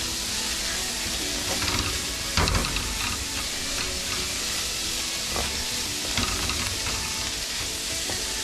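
Chopped onion, green onion and cilantro sizzling in oil in a metal pot, stirred with a wooden spoon that scrapes and knocks against the pot now and then, most sharply about two and a half seconds in.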